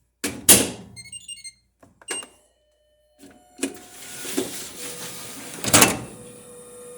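A couple of loud clicks as a part is pushed into place, then a quick run of short electronic beeps and a single beep from the Fisher & Paykel dryer's control panel as it powers up. A few seconds later the dryer starts running with a steady hum, and a loud knock comes near the end.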